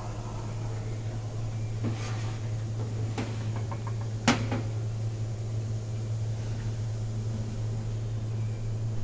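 Steady low hum, with a couple of light knocks and one sharp clack about four seconds in as a porcelain cup is set down on a stainless steel counter.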